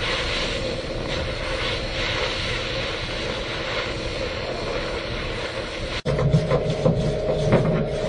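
Oxy-acetylene welding torch flame hissing steadily as it is played on a steel forklift engine cover and filler rod is fed into the weld. About six seconds in it cuts off abruptly and a different sound takes over, a steady hum with quick clicks.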